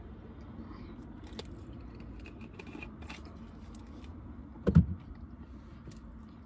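Small handling clicks, then a single loud dull thump about five seconds in as a drink bottle is set down, over a low steady rumble inside the car.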